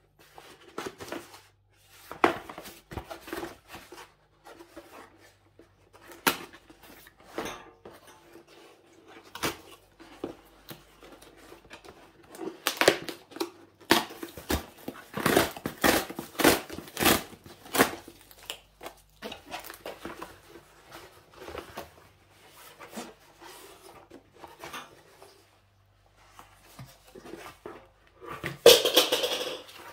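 Packaging being opened and handled: an irregular run of clicks, taps and rustles, with a louder burst of rustling near the end.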